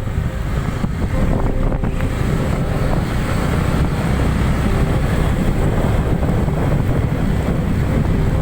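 Heavy wind buffeting the microphone at riding speed, a loud, steady low rumble with a faint steady hum beneath it.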